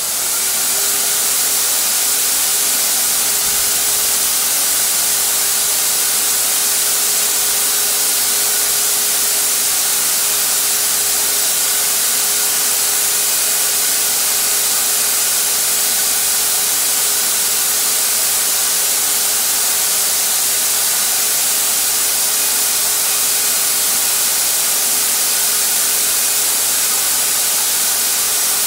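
Harbor Freight HVLP turbine sprayer running: the turbine spins up at the start and then runs at a steady, loud rush of air with a constant hum, blowing air through the hose and spray gun as paint is sprayed.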